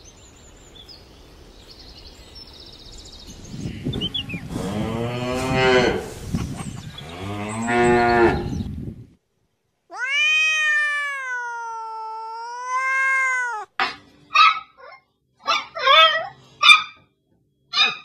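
Two long, low, drawn-out animal calls, then a domestic cat giving one long meow that dips in pitch and rises again. It is followed by a small dog yapping, about seven short, quick barks near the end.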